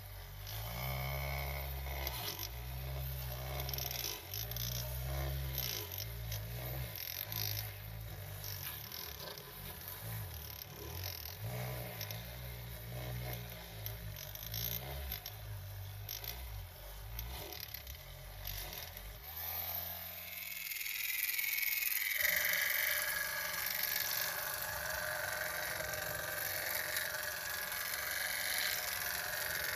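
Miniature carpet-cleaning machines at work on a wet rug. First a small rotary scrubber clatters and clicks with a low pulsing. About twenty seconds in that stops, and the small electric motor of a miniature counter-rotating-brush carpet machine spins up, rising in pitch to a steady high whine.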